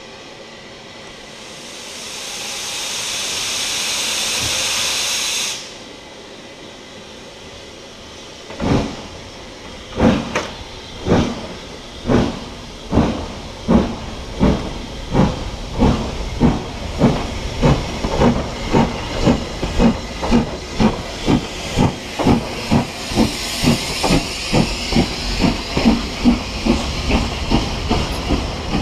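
Southern Railway S15 steam locomotive No. 847 gives a loud hiss of steam lasting about four seconds, which cuts off sharply. It then starts its train: the exhaust beats begin slowly, about one a second, and quicken steadily to two or three a second as the train gathers speed.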